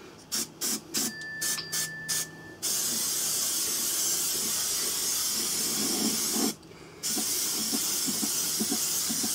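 Aerosol spray paint can hissing: a quick run of short spurts over the first two and a half seconds, then a long steady spray, a brief break about six and a half seconds in, and another long spray.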